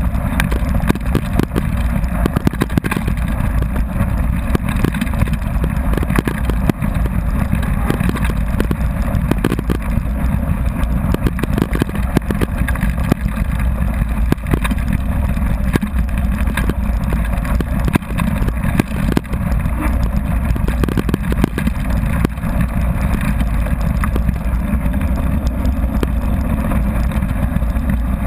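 Mountain bike coasting fast down a gravel forest road: a steady, loud rumble of wind and tyre noise, broken by many small knocks as the bike jolts over stones and bumps.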